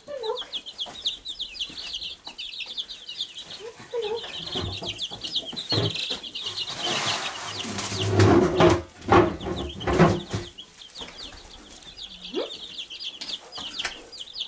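A brood of Wyandotte bantam chicks peeping constantly, many rapid high cheeps overlapping. For several seconds around the middle, louder rustling and knocks are the loudest sound.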